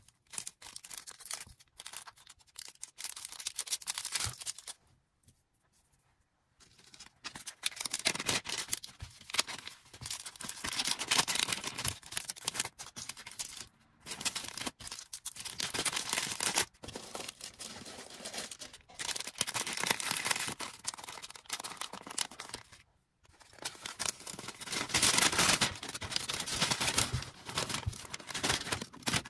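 Hands packing an order: packaging material rustling, crinkling and tearing in irregular bursts, with short pauses about five seconds in and again near the end.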